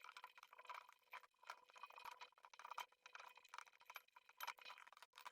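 Near silence with faint scattered clicks and light clinks, like small metal parts being handled.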